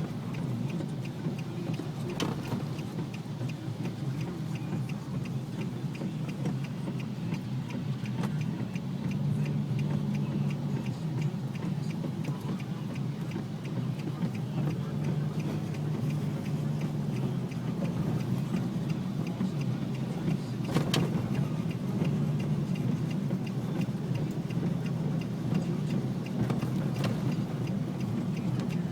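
Steady low hum of a vehicle's engine and road noise, with a fast faint ticking and a few sharp clicks.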